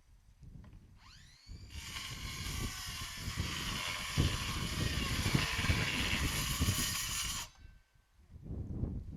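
A power saw's motor winds up with a rising whine about a second in, then runs with a loud, harsh noise for about six seconds before cutting off suddenly. Knocks and thumps sound underneath.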